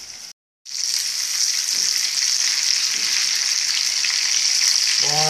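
Breadcrumb-coated king mackerel pieces sizzling as they shallow-fry in hot oil in a pan. The frying hiss cuts out for a moment just under a second in, then comes back louder and stays steady.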